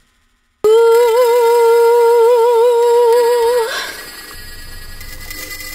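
A woman singing one long held note with a wavering vibrato, loud and sudden after a brief silence, lasting about three seconds before it stops.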